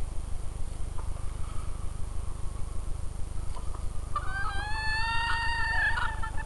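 A rooster crows once: one long, fairly level call of about two seconds, starting about four seconds in. A steady low pulsing rumble runs underneath throughout.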